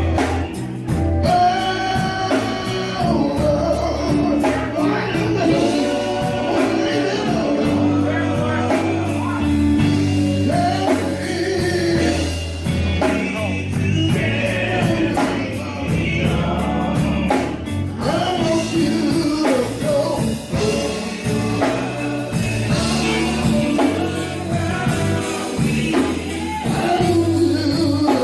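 Gospel music: singers, lead and group voices, over a band with bass and drums.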